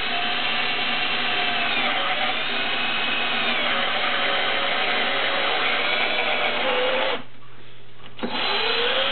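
Ryobi 18V cordless drill boring a screw pilot hole into a wooden frame, its motor whine wavering up and down in pitch. It stops about seven seconds in and starts again a second later.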